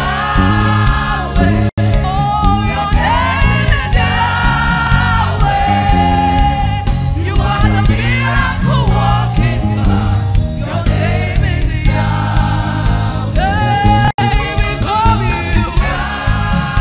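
Live gospel praise-and-worship music: a woman leading the singing over a band with electric bass guitar. The sound cuts out for an instant twice, once near the start and once near the end.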